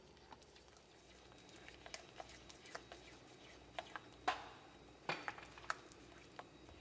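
Silicone spatula stirring thick mung bean paste in a nonstick frying pan as the mooncake filling is cooked down, giving faint scraping and irregular soft clicks and knocks; the loudest knock comes a little past four seconds in.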